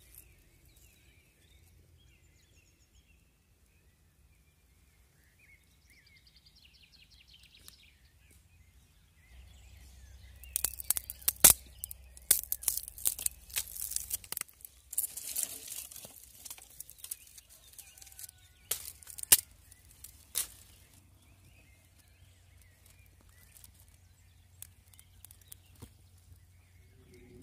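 Birds chirping faintly. From about ten seconds in, roughly ten seconds of sharp cracks and rustling, the sound of dry twigs being snapped and handled, then only a few scattered clicks.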